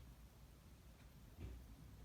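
Near silence: room tone with a faint low hum and a couple of faint clicks in the middle.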